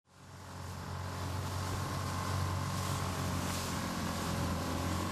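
Outboard engine of an inflatable inshore lifeboat running at speed, a steady hum under the rush of its wash; the sound fades in over the first second, then holds steady.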